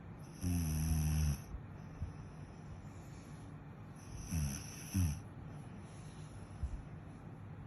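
Snoring: one long snore about half a second in, then two shorter snores falling in pitch around four seconds later.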